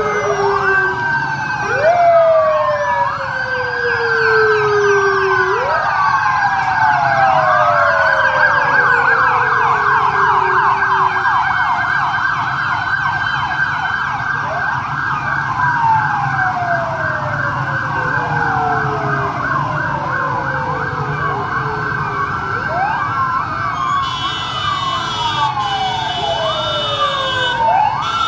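Several police vehicle sirens sound at once, their wails overlapping: each jumps up and slides slowly down in pitch. A fast warbling yelp joins in about a third of the way through. Beneath them is the low rumble of the passing vehicles' engines.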